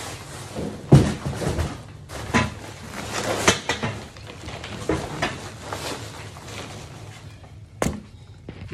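Plastic wrapping crinkling and rustling as an exhaust pipe section is unwrapped by hand, broken by several knocks and thumps as the pipe and its packaging are handled. The sharpest knock comes about a second in, another near the end.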